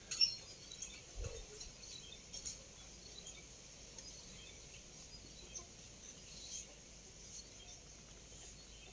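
Quiet outdoor yard ambience: a faint steady hiss with scattered faint high chirps and a few light clicks.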